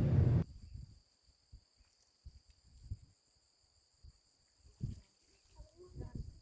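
Faint, steady, high-pitched drone of insects, with scattered soft low thumps.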